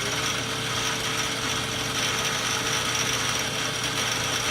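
Live-tooling drive in the turret of a Mazak SQT-18MS CNC lathe running steadily at its maximum 3000 RPM: a steady whine with mechanical gear noise.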